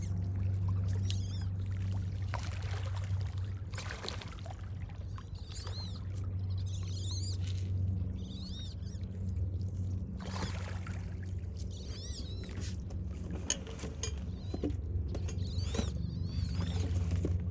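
Water splashing and sloshing as a crowd of turtles feeds, with birds chirping again and again over a steady low hum.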